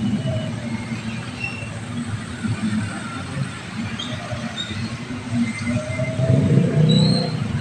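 Night street traffic: motorbike and car engines running and tyres on a wet road, a steady low rumble that swells about six seconds in as a motorbike passes close.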